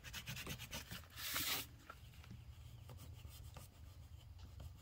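A wooden butter knife used as a bone folder rubbing along cardboard to crease and smooth it, with one louder scraping stroke about a second in, then faint light scratching.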